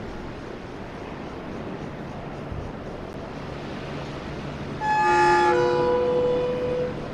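Taiwan Railway train's horn sounding as the train approaches: one blast of about two seconds, a chord of notes that shifts lower partway through. It sounds over the steady hiss of surf and wind.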